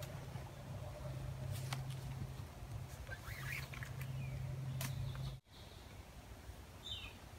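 Quiet forest sound of a tarp shelter being rigged: a few light knocks and clicks from handling the wooden poles and cord, over a steady low hum that cuts off abruptly about five seconds in. A short falling bird chirp comes near the end.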